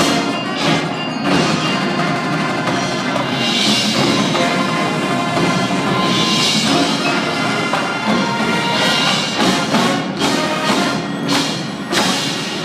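Marching band playing its field show, drums and percussion prominent, echoing in a large domed stadium.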